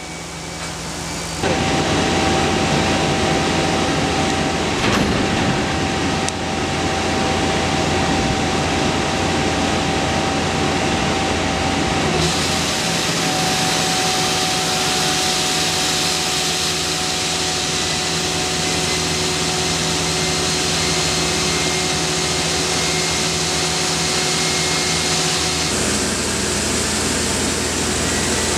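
Hammelmann DockBoy high-pressure water-blasting head running: a steady hiss of water jets over a machine hum with a few steady tones. It builds over the first second and a half, then jumps to full loudness, and its tone shifts abruptly near the middle and again near the end.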